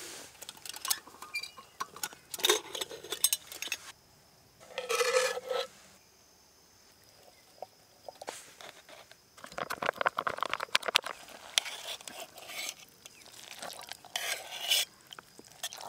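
Metal clinking and scraping on a stainless steel camp cooking pot: the lid is lifted off, canned vegetables are scraped into the pot with a utensil, and the food is stirred. The clinks come in scattered bursts with short quiet gaps, busiest a little past the middle.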